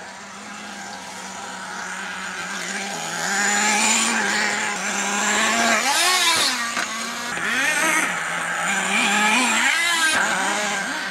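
HPI Firestorm nitro RC truck's small two-stroke glow engine running. It holds a steady note that grows louder over the first few seconds, then revs up and down again and again in quick bursts as the throttle is worked.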